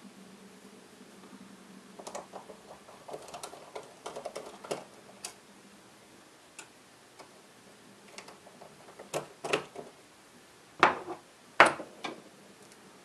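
Small scattered clicks and ticks of a precision screwdriver working the tiny screws out of a 2.5-inch hard drive's circuit board, with two louder clicks near the end.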